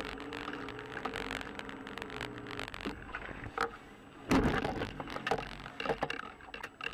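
Car driving, heard from inside the cabin on a dashcam: a steady running hum with scattered clicks and scrapes, and a single loud thump about four seconds in.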